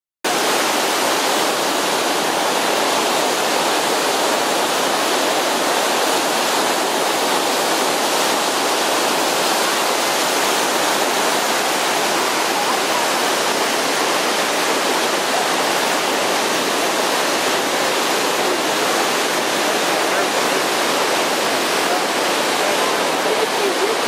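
Large waterfall with heavy whitewater plunging over its brink: a steady, even rush of water with little deep rumble.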